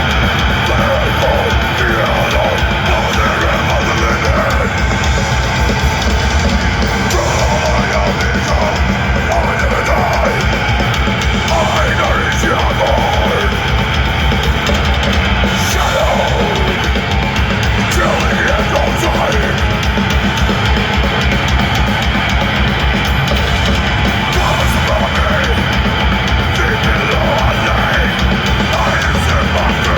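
Death metal band playing live at full volume: distorted guitars, bass and fast, dense drumming, with shouted vocals over them.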